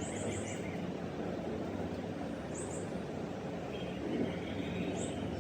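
Small birds chirping: a quick run of four high chirps at the start, a pair about two and a half seconds in, and another near the end, over a steady low background rumble.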